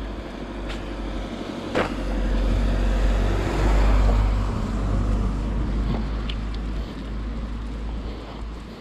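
A car passing on a wet road: the hiss of its tyres swells to a peak about four seconds in, then fades away. A sharp click sounds just under two seconds in.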